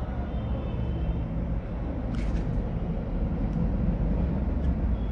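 Steady low background rumble of the kind passing road traffic makes. About two seconds in there is one brief scratch, which fits a marker stroke on the writing board.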